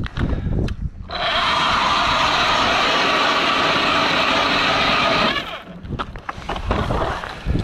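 Power ice auger drilling a hole through the ice, running steadily for about four seconds. It starts abruptly about a second in and cuts off near the end, with scattered knocks and shuffling before and after.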